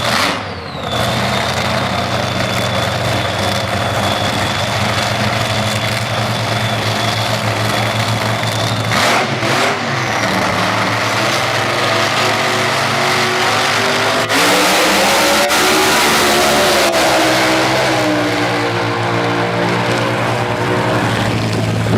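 An engine running steadily at low revs, with a thin high whine over the first half and its pitch wavering about two thirds of the way through.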